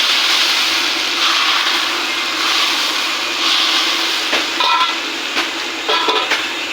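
Sambal ingredients frying in hot oil in a pan, sizzling steadily in swells that rise and fall about once a second. A few sharp metal clinks come in the second half.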